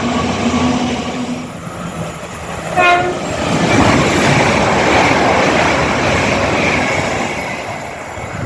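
A train sounds one short horn note about three seconds in, then rushes past with a loud rumble and rail clatter.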